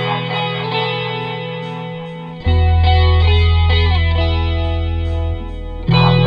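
Instrumental rock music led by an effects-laden, distorted electric guitar over a sustained bass, with chord changes about two and a half seconds in and again near the end.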